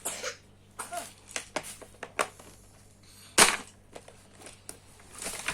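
Hard plastic baby-walker parts being handled and fitted together: a run of small clicks and knocks, with one loud sharp knock about three and a half seconds in.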